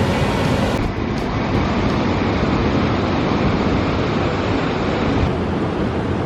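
A waterfall's rushing water: a loud, steady roar with no break, its tone changing abruptly twice as the shots change.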